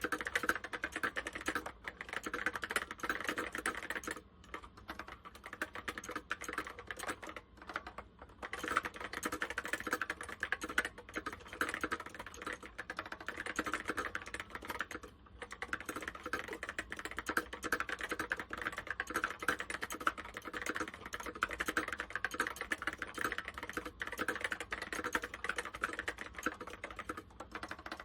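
Continuous typing on an Apple M0110 keyboard with Alps SKCC Tall Cream linear switches: fast, dense key strokes with short pauses about 4, 8 and 15 seconds in.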